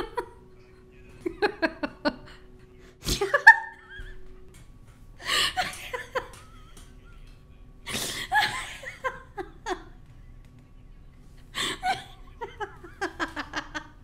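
Human laughter: chuckles and giggles in repeated short bursts of quick pulsed breaths, with pauses between the fits.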